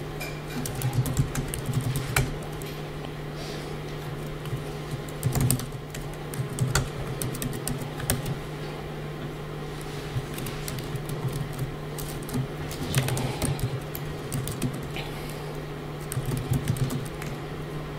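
Typing on a computer keyboard: irregular clusters of key clicks, over a steady low hum.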